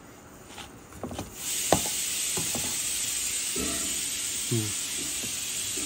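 A steady hiss sets in suddenly about a second and a half in and holds, with a few light clicks of a steel spoon against a steel plate while biryani is scooped.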